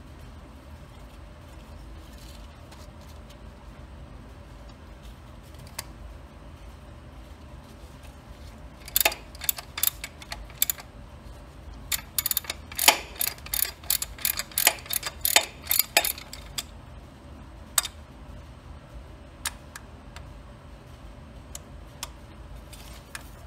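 Socket ratchet wrench clicking as the bolts of a tractor's drive shaft oil seal carrier are turned out. The clicks come in two quick runs about halfway through, with a few single clicks before and after.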